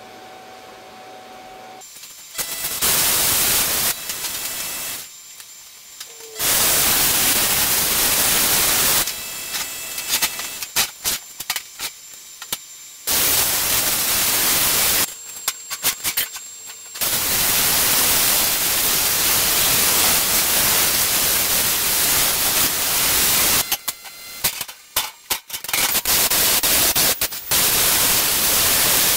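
Hypertherm handheld plasma cutter cutting steel plate: a loud, steady hiss that starts and stops several times, with short breaks between cuts and some crackly, broken stretches.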